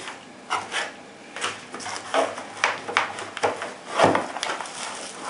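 Product packaging being handled as a flashlight is taken out of its box: irregular knocks, clicks and rustles, about a dozen over a few seconds.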